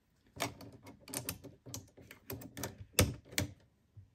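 Irregular plastic clicks and taps of tools being swapped in a Cricut Maker 3's carriage clamp: the scoring wheel coming out and the fine-point blade going in. The sharpest click comes about three seconds in.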